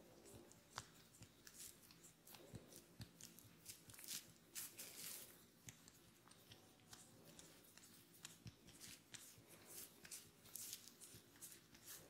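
Fingertips pinching, rubbing and tugging strands of oiled hair at the scalp, giving faint, irregular crackles and rustles: ASMR hair cracking.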